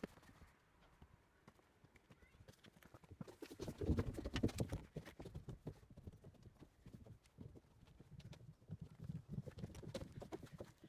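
Quick footsteps and knocks of someone moving over a wooden and plastic-barrel obstacle course, with a louder run of low thumps about four seconds in.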